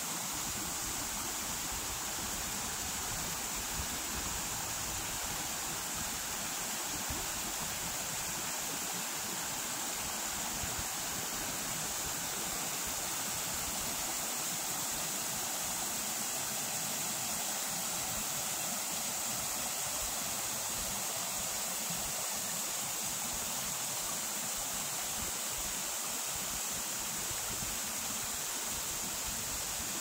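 Shallow mountain creek rushing over rocks in small cascades: a steady, even rush of water.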